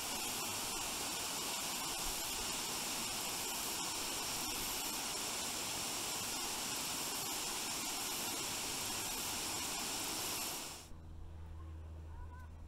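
Steady rushing of a shallow creek flowing over rocks. It cuts off about eleven seconds in, leaving a faint low hum with a few faint high chirps.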